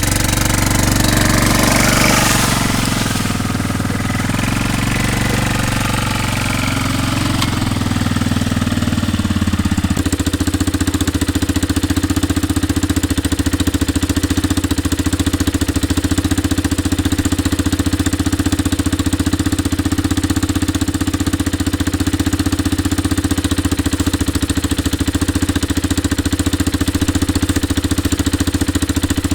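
An engine running steadily: noisier and more uneven for the first ten seconds or so, then settling into an even idle.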